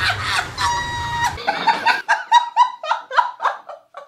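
Two men laughing hard in quick repeated ha-ha pulses, starting about halfway in. Before the laughter comes a short held tone over background noise.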